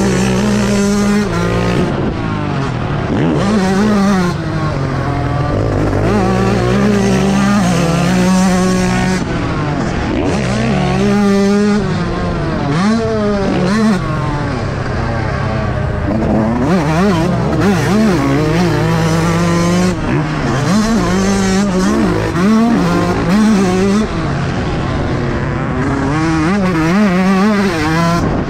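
Yamaha YZ125 single-cylinder two-stroke motocross engine ridden hard: it revs up and drops back again and again as the rider accelerates, shifts and rolls off.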